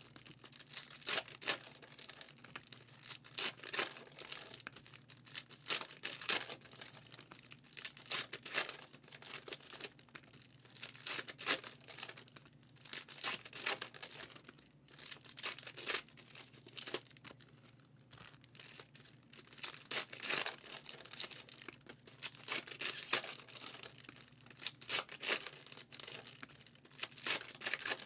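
Foil football-card pack wrappers being torn open and crinkled, with the cards inside handled and sorted, in irregular bursts of rustling and ripping.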